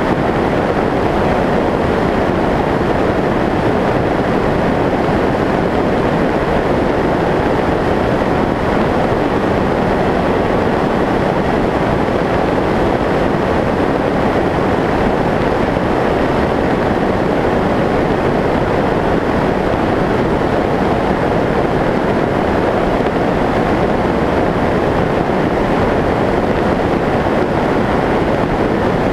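Steady rushing airflow noise on the onboard camera of a Skyshadow S800 FPV flying wing in flight. It is an even, unbroken rush with no change over the whole stretch.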